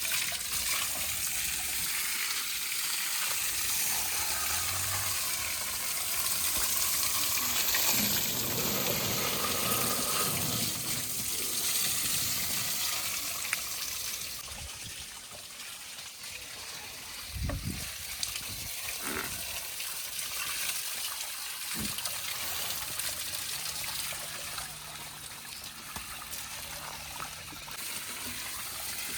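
Water gushing and flowing steadily, louder in the first half, with a few short knocks about halfway through.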